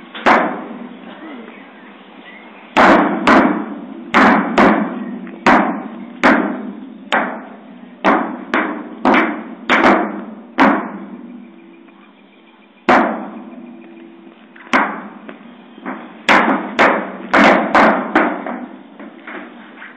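Children's footsteps on a stainless-steel playground slide: a string of irregular knocks and thuds on the metal sheet, each with a short ring, with a brief lull just past the middle.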